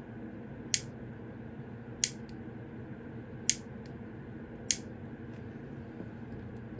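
Piezo igniter clicking four times, a sharp snap roughly every second and a half, as its spark is fired into a camera's LCD panel to revive missing display segments. A faint steady hum runs underneath.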